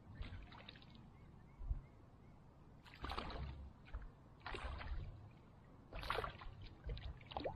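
Several short bursts of splashing from a hooked fish thrashing at the surface of shallow water as it is played on a pole rod, over a low steady rumble.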